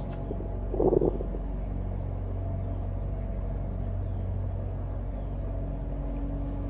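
A low, steady rumbling drone with a few sustained tones, and a brief louder burst of noise about a second in.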